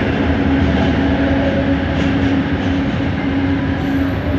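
Bombardier Innovia ART 200 metro train running, heard from inside the car: a steady motor tone over the rumble of wheels on the track.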